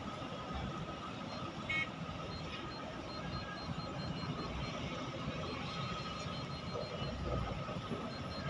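Heavy diesel machinery, excavators and dump trucks, heard from afar as a steady mechanical drone with a constant high whine running through it.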